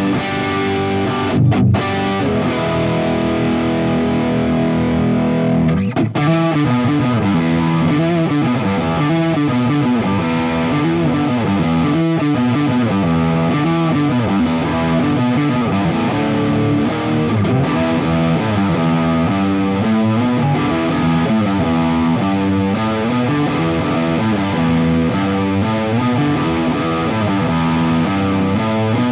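Electric guitar with a DiMarzio DP156 Humbucker From Hell neck pickup wired in parallel, played distorted through a Fractal AX8 modeler's Friedman HBE preset. Held chords ring for the first six seconds or so, then a fast riff of single notes runs on.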